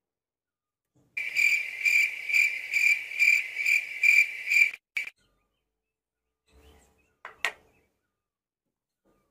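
A high-pitched chirping that pulses about twice a second for nearly four seconds, beginning about a second in and cutting off abruptly. It is followed by a short blip and, near the end, a faint click.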